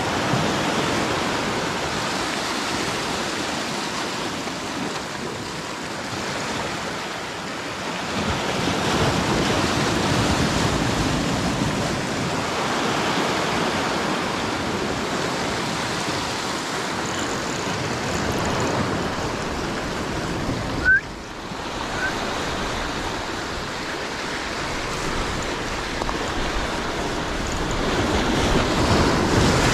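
Sea waves breaking and washing over a rocky shore: a steady rush of surf that swells and eases. One brief sharp knock about two-thirds of the way in.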